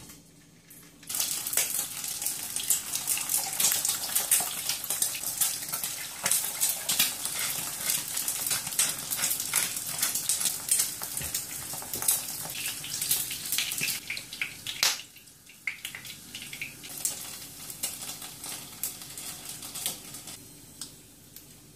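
Eggs and sausages sizzling and spitting in hot oil in a frying pan. The sizzling starts abruptly about a second in, stays strong until about 14 seconds, then dies down to lighter crackling.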